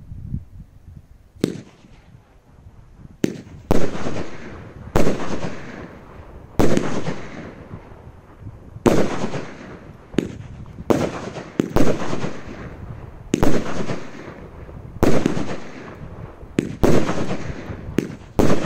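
A 16-shot consumer firework cake firing its shots one after another. Each is a sharp bang with a fading tail, coming about every one to two seconds, starting about a second and a half in.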